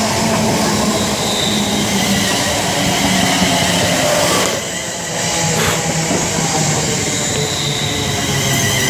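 Siemens Desiro Class 350 electric multiple unit, two units coupled, running slowly alongside the platform into the station: steady wheel and motor noise with whining tones, dipping briefly about halfway through.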